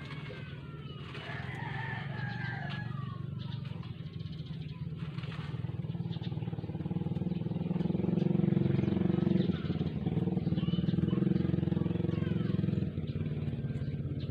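A small engine running steadily, growing louder through the middle and dropping back suddenly near the end, with a few high chirps in the first seconds.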